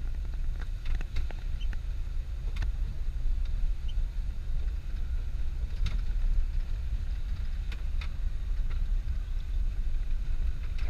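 Vehicle driving over a rough dirt track: a steady low rumble with scattered sharp ticks and knocks.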